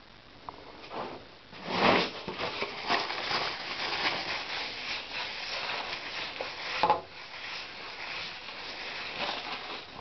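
Handling noise: close rubbing and rustling against the hand-held camera, with a louder scrape about two seconds in and another near seven seconds.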